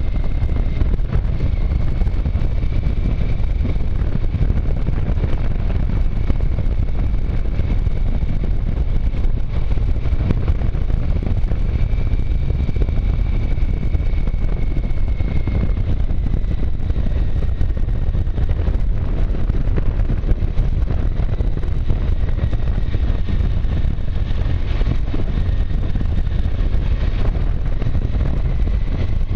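Motorcycle riding at steady speed: a constant rush of wind over the microphone with the engine running underneath, and a faint high whine that drifts slightly in pitch.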